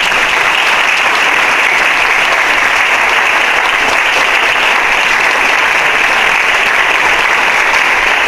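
A congregation applauding: many hands clapping steadily together.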